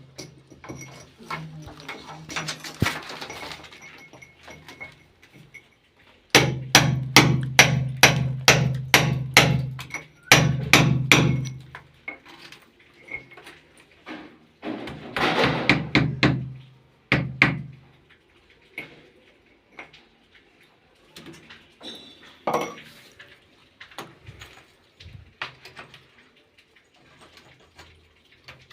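Hammer blows during plumbing work: a quick run of about a dozen strikes, roughly three a second, about six seconds in, then more bouts of knocking and scattered lighter taps.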